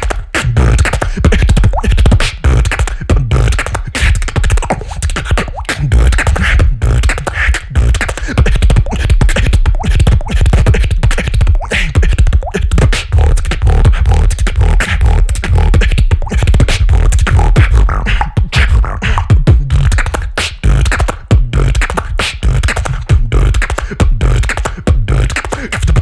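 Beatboxing close into a handheld microphone: a dense, unbroken run of rapid percussive hits over heavy bass.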